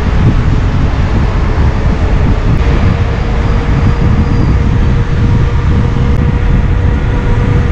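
Loud, steady wind rumble on the microphone of a motorcycle riding along an open road, with a faint steady engine tone underneath from a few seconds in.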